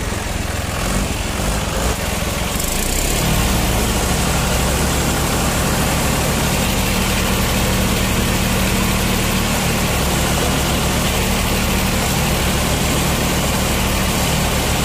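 Tractor diesel engine running, picking up speed and getting louder about three seconds in, then holding steady at the higher speed while a stuck tractor is pulled out of mud on a tow rope.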